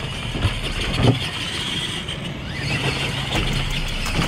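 Tamiya Super Clod Buster RC monster truck driving over sand: the whine of its electric motors and gears rises as it speeds up, with a knock about a second in.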